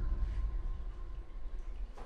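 Low, fading drone of a suspenseful background score, with a faint high tone dying away about a second in.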